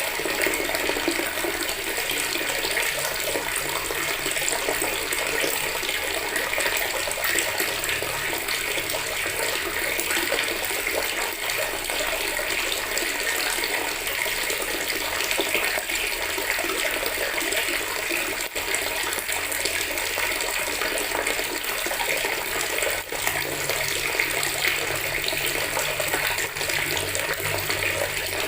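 Water running steadily from a tap into a plastic bucket, a constant splashing stream.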